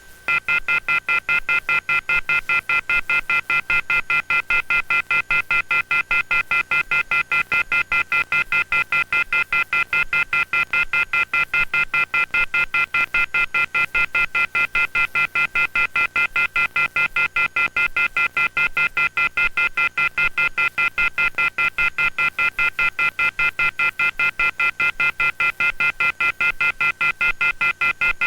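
Telephone off-hook warning tone (the 'howler'): a loud chord of high tones pulsing on and off several times a second without a break. It is the sign that the phone line carrying the emergency alert has been left off the hook.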